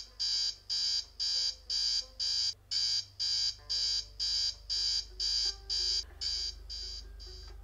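Digital alarm clock beeping, about two and a half high-pitched beeps a second; the beeps grow fainter over the last second or so and stop near the end.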